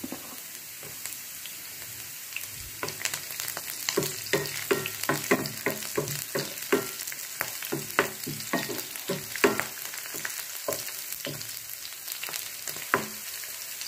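Chopped garlic, ginger and whole green chillies sizzling in hot oil in a non-stick frying pan. A wooden spatula stirs them from about three seconds in, with many short knocks and scrapes against the pan.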